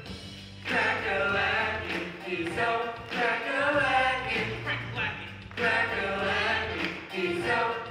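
Stage cast singing together in chorus over a backing track with a steady bass line; the sung phrases start just under a second in.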